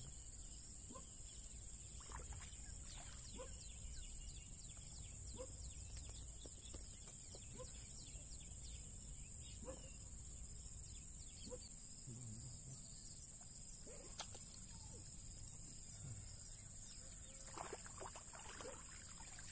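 Steady high-pitched drone of insects, with faint scattered bird chirps over a low rumble of wind.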